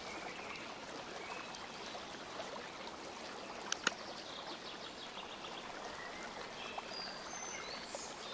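Faint steady hiss of room tone, with two quick clicks close together a little under four seconds in and a few faint short high chirps near the end.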